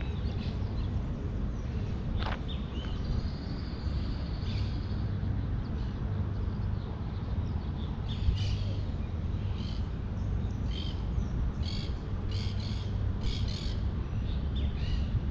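Birds calling in short, harsh bursts, coming more often in the second half, over a steady low rumble.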